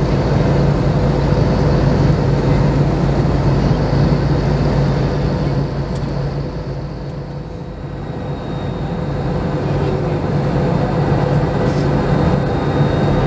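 Cabin noise of an Airbus A321 in flight on descent, heard from a window seat over the wing: a steady rush of airflow with the low hum of its CFM56-5B engines running. The noise dips briefly about halfway through and then builds back to its earlier level.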